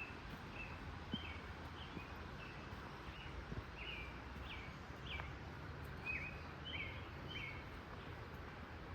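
A small bird calling over and over in short, quick chirps, some sliding down in pitch, about two a second, over a steady rushing background noise.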